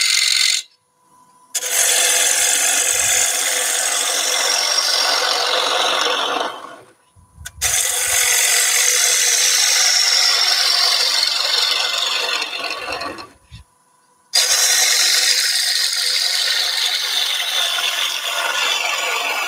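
Gouge cutting into a spinning wooden bowl blank on a wood lathe: a steady hiss of shavings being cut, in passes from the rim down toward the centre that fall in pitch through each pass. Three brief silences break the passes, where the tool is lifted off the wood.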